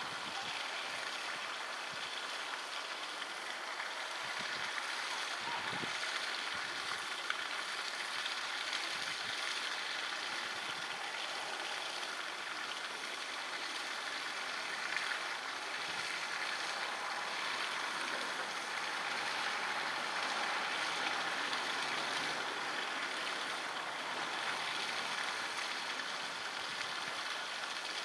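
Steady rush of running water, like a stream flowing over stones.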